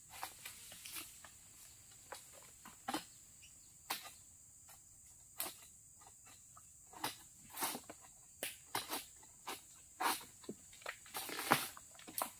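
Pole-mounted harvesting sickle cutting into an oil palm's fibrous frond bases high in the crown: irregular sharp cracks and scrapes, coming more often in the second half, over a faint steady high hiss.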